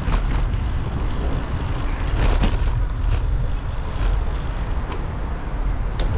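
Wind buffeting a handheld microphone, a steady low rumble that flutters in level, with a few sharp ticks scattered through it.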